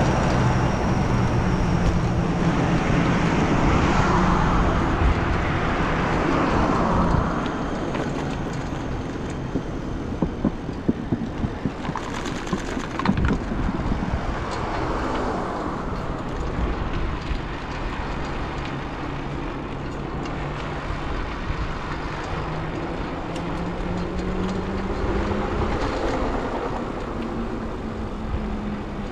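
Road traffic passing close by. A truck's engine is loud at first, then drops away about seven seconds in, and the sound settles into cars going past over a constant low rumble, with a few sharp knocks about halfway through.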